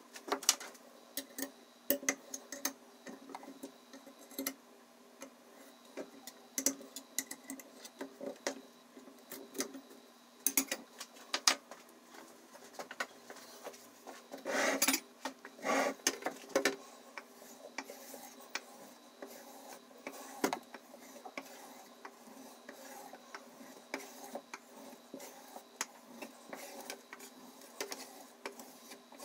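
Scattered light metal clicks and taps as a steak knife and the sharpener's clamp are handled, the knife flipped over and unclamped, with a louder stretch of rubbing about halfway through.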